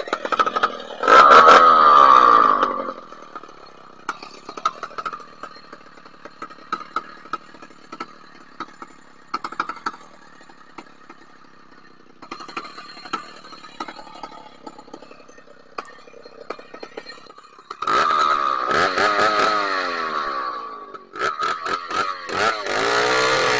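Chainsaw revved up for about two seconds, then idling quietly with a light ticking rattle for some fifteen seconds, then revved hard again near the end, its pitch dropping and climbing as the throttle is eased and opened.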